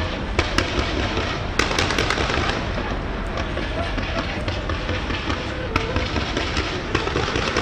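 Fireworks going off: scattered sharp pops and crackles over a steady din, with the voices of a crowd mixed in.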